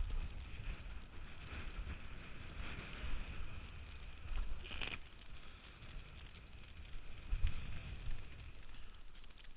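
Wind buffeting the action camera's microphone over the rush and splash of water past a windsurf board sailing at speed through chop, with a brief louder hiss of spray about five seconds in.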